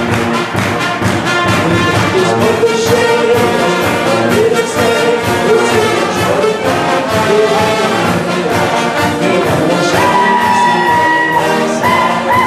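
German brass band (Blaskapelle) playing a lively tune on tuba, trumpets and other brass over a steady beat, with a long held note about ten seconds in.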